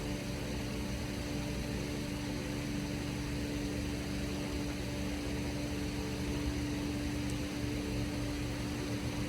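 Steady machine hum with an even hiss: a constant drone holding one low pitch without change.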